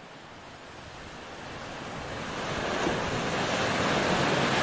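A rushing noise with no distinct tones, swelling gradually over about four seconds and then holding steady.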